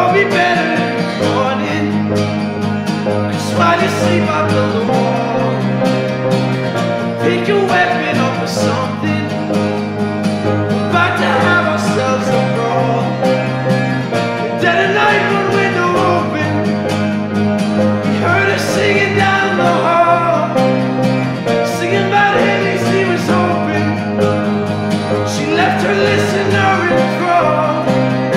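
Acoustic guitar and grand piano playing a slow song together at a steady level, with a drawn-out vocal line without clear words rising over them every few seconds.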